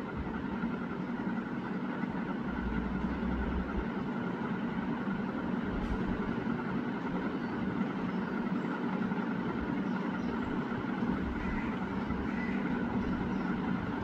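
Steady background rumble, like distant road traffic, with a few faint bird chirps near the end.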